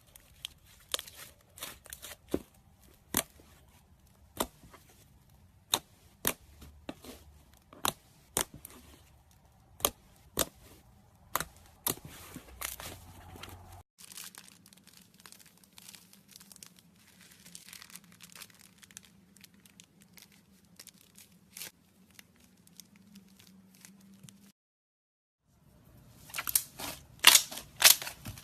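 Slime being squeezed and poked by hand, giving a string of sharp, wet-sounding clicks and pops. A cut about halfway through brings fewer, softer pops, and after a second of silence near the end come faster, louder crackles.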